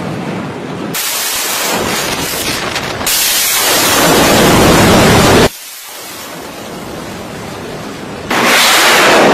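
Harpoon Block 1C anti-ship missile's solid-fuel rocket booster roaring at launch from the ship's deck launcher, a loud dense rushing noise. It jumps in level abruptly a few times, drops sharply about five and a half seconds in, and comes back loud near the end.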